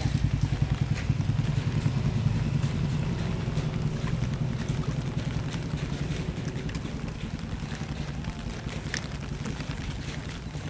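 Motorcycle engine running at a steady low speed, a rapid low pulsing that slowly fades away over several seconds.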